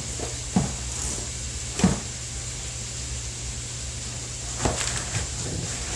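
A few short knocks and clunks from kitchen handling at the counter, over a steady background hum and hiss.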